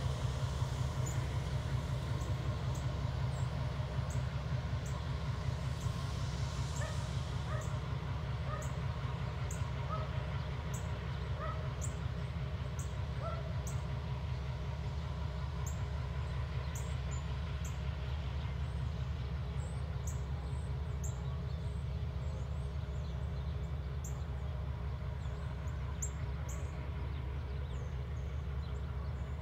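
Diesel-electric locomotives running with a steady low rumble as one engine moves slowly up to the others. Small bird chirps are heard over it in the first half.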